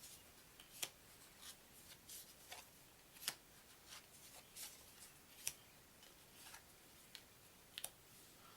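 Paper game cards being handled one after another: a quiet, irregular run of sharp flicks and soft swishes as they are flipped through and set down.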